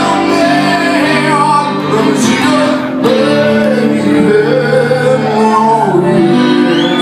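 Live acoustic rock: a man singing into a microphone over two strummed acoustic guitars.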